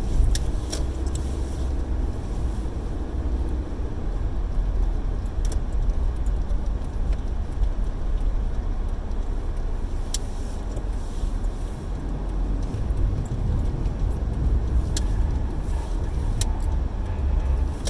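Car road noise heard from inside the cabin while driving: a steady low rumble, with a few faint clicks here and there.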